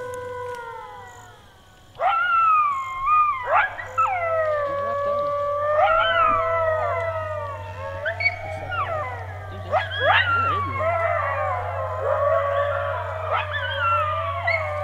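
A group of coyotes howling and yipping together: several wavering, overlapping howls with sharp yips. It follows a single falling howl that fades out about a second and a half in, and the chorus starts abruptly about two seconds in. A steady low hum runs underneath.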